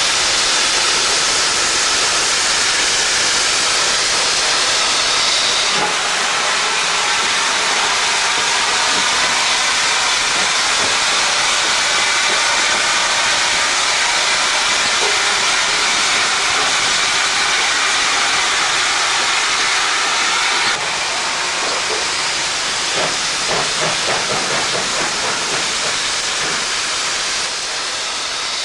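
Steady steam hiss from the sound effects of an OO gauge model of an LMS Patriot Class steam locomotive. The hiss drops in level about six seconds in and again about twenty-one seconds in, with a few faint clicks near the end.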